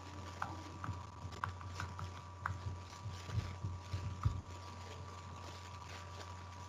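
Faint steady electrical hum with a few soft clicks in the first couple of seconds, then several low thumps around three to four seconds in.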